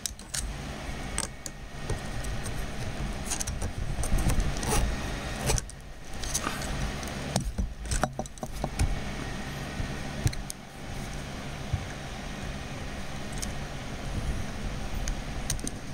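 Small 3D-printed plastic parts and a brass pin being handled and fitted together by hand: scattered clicks and scrapes over a steady low rumble of handling noise.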